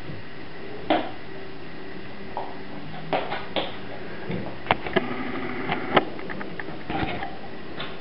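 Dog rummaging inside a wire crate for a bone: scattered clinks and knocks as its paws and the bone bump the crate's floor pan and wire sides.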